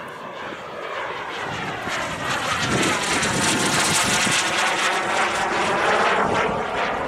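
JetCat P200SX model turbine engine of a large scale-model Eurofighter jet flying past: a jet rush that builds to its loudest about three to six seconds in, with a phasing sweep as it passes over.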